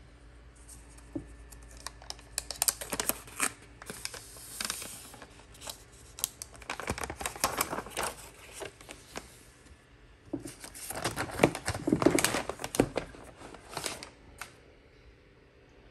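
Thin protective plastic film being peeled and pulled off a laptop's aluminium body, crackling and rustling with sharp little clicks. It comes in two long stretches with a short lull between them, and it dies down near the end.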